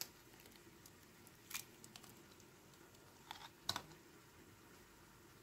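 Eggs being cracked into a bowl: a few faint, sharp cracks and taps of eggshell, the loudest near the end, over near silence.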